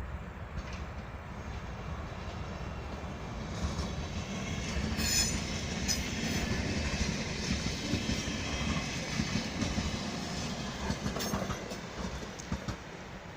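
A train running past on the station tracks, its wheels clacking over rail joints. The rumble swells over the first few seconds and eases near the end, with a brief high wheel squeal about five seconds in.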